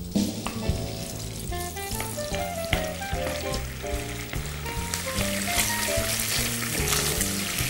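Strips of bacon sizzling as they fry in hot vegetable fat in a pan, the sizzle growing louder about five seconds in. Background music plays throughout.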